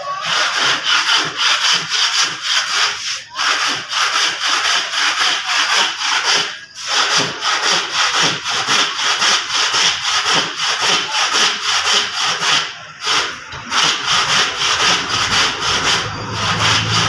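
Hand saw cutting through an old painted wooden door-frame post in steady, evenly repeated back-and-forth strokes, with a few short breaks.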